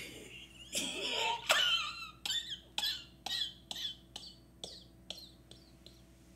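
A woman laughing hard in a run of about a dozen short, high-pitched, wheezy bursts that come closer together and grow fainter, dying away about five seconds in.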